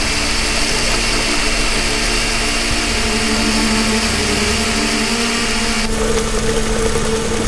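Electric mixer grinder running steadily as it grinds a handful of black peppercorns to a fine powder, a loud even whirr that cuts off at the end.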